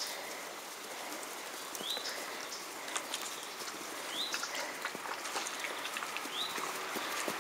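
A bird repeating a short, high, rising chirp about every two seconds over a steady outdoor hiss, with scattered faint clicks.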